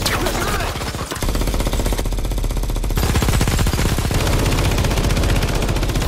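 Rapid automatic gunfire from a film's battle scene, many shots running together in dense bursts over a steady deep rumble.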